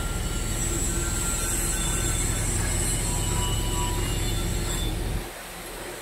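Crawler crane's diesel engine running steadily under load while it holds a steel girder on its hoist rope, with a steady high-pitched hiss over it that fades out near the end. About five seconds in, the low rumble suddenly drops away.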